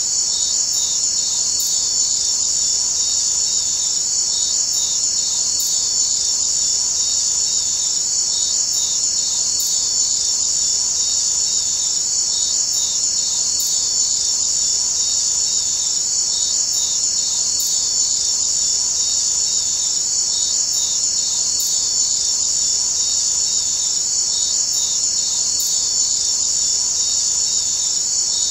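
Steady high-pitched chirring of an insect chorus, like crickets, unbroken throughout, with a faint regular pulse underneath.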